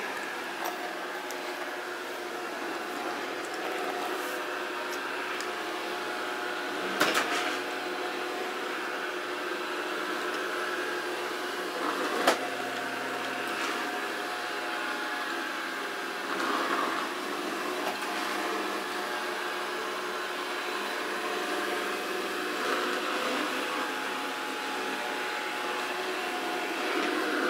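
Samsung SR8751 robot vacuum cleaner running: a steady motor and brush hum with several held tones, and two sharp knocks, about seven and about twelve seconds in.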